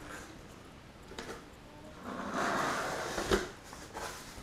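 Cardboard shipping box being handled as its flaps are pushed open: a scraping rustle about halfway through that ends in a sharp knock, with a few lighter taps.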